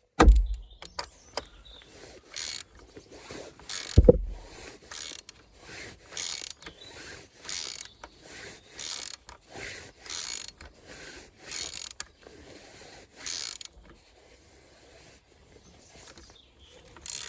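A ratchet wrench worked in short strokes, one about every second and a half, screwing down the oil filter housing cap. There are two heavier knocks, one near the start and one about four seconds in.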